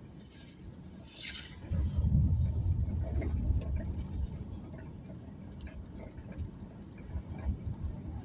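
Car on the move: low road and engine rumble. It swells for a couple of seconds about two seconds in, with a few brief hissing scrapes.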